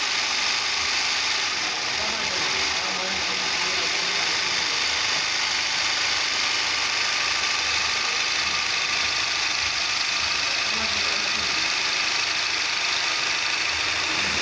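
Electric zigzag sewing machine running steadily, a continuous even mechanical hum and clatter, with faint voices behind it.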